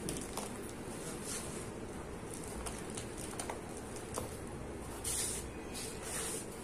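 Dry sand-and-cement crumbs falling and sifting onto a heap of dry powder, a soft gritty hiss with a few small ticks. Near the end, a hand brushes across the powder in two short gritty swishes.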